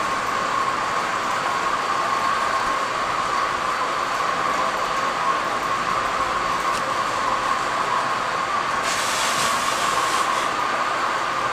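Steady background hum, with a brief dry rubbing swish about nine seconds in from a duster wiping a whiteboard.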